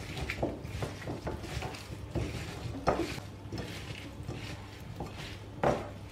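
A hand mixing seasoned potato wedges, onion and tomato pieces in a white bowl: irregular clicks and knocks as the pieces tumble against the bowl, with two louder knocks about three and five and a half seconds in.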